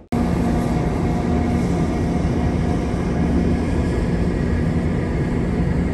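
Steady drone of a crude oil tanker's engine and machinery heard on deck, a few steady hum tones over a rushing noise.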